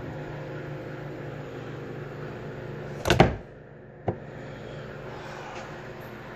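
Steak sandwich on an electric contact grill: a steady hum with a hiss, then a loud metal clatter about three seconds in, after which the hiss falls away, and one sharp click a second later.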